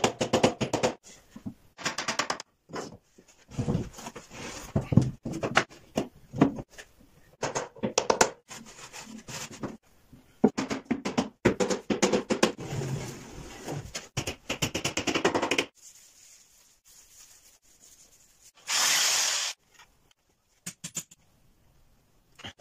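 Wooden cabinet parts being knocked together with a mallet, a long run of uneven sharp taps as the dovetail joints are driven home. Near the end there is a quieter stretch, a brief burst of noise and a few clicks.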